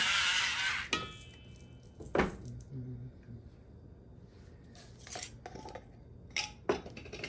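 Electric pepper grinder whirring as it grinds pepper for about the first second, then stopping. After that come a few hard knocks and clinks as the grinder is set down on the stovetop and handled again.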